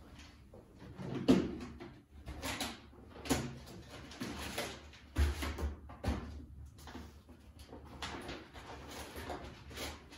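Someone rummaging and handling things: irregular knocks, scrapes and rustling as objects are moved about and a drawer or cupboard is worked, with a sharp knock just over a second in and a dull thud about halfway.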